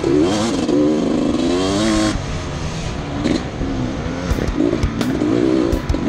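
Gas Gas EC300 two-stroke dirt bike engine, the revs rising and falling in quick surges as the throttle is worked on a rough trail. Sharp knocks and clatters come in the last couple of seconds.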